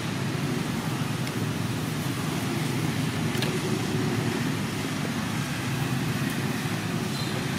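Steady low rumbling background noise with a few faint ticks.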